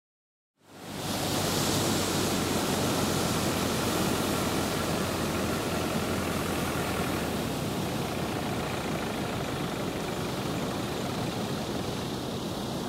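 Steady rushing noise of surf and wind on an open beach, starting a little under a second in after a moment of silence.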